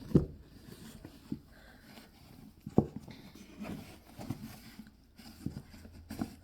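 A dry cloth rubbing inside a plastic Samsung washing-machine detergent drawer, with scattered light knocks as the drawer is handled, the sharpest about three seconds in.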